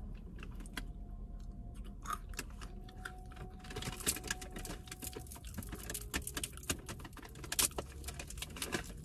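Roasted in-shell peanuts being cracked open by hand: a run of small, irregular shell cracks and crackles.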